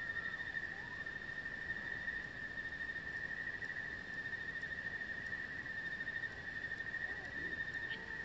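A steady, unbroken high-pitched insect trill with a fast fine pulse, joined by a few faint short chirps.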